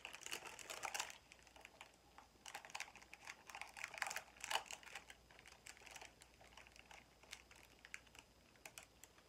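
Faint, irregular small clicks and crinkles of a protein bar being unwrapped and eaten. They are busiest in the first five seconds and thin out after.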